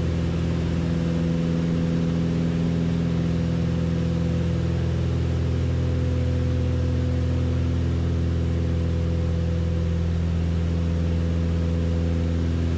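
Steady drone of a Beechcraft Baron B55's twin six-cylinder piston engines and propellers, heard inside the cabin in flight: an even, unchanging hum with no change in power.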